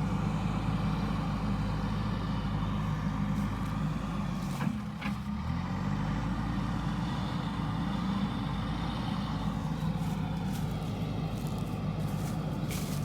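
JCB backhoe loader's diesel engine running under load, its pitch dipping and rising as the machine works. A few sharp knocks about five seconds in and again near the end.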